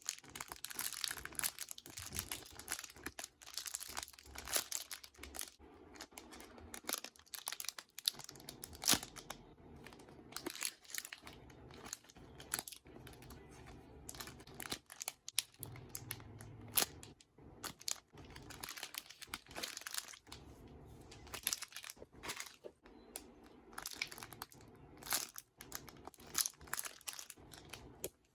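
Squishy toys being handled and squeezed, with dense, irregular crinkling and crackling throughout.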